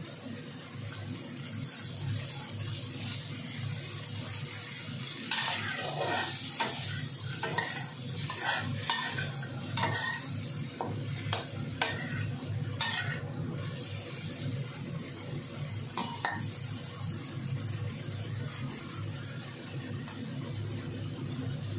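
Shell-on shrimp sizzling in a pan over low heat. From about five seconds in until about sixteen seconds, a metal spatula scrapes and knocks against the pan again and again as the shrimp are stirred. A steady low hum runs underneath.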